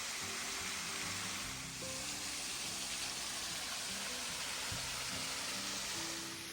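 Steady hiss of rushing water, with background music playing short held low notes underneath.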